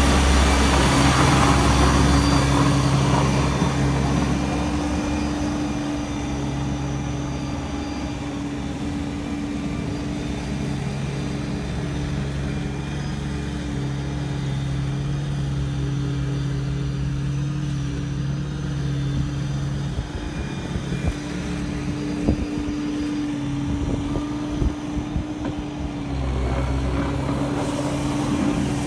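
Massey Ferguson GC2300 compact tractor's three-cylinder diesel engine running steadily while it pushes slush with its front plow. The engine is loudest in the first few seconds and again near the end, with a few sharp knocks about two-thirds of the way through.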